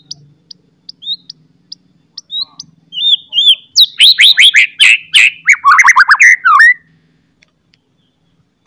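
White-rumped shama (murai batu) singing: short, sharp high notes a few times a second, then a loud, rapid run of sweeping whistles for about three seconds that breaks off about seven seconds in.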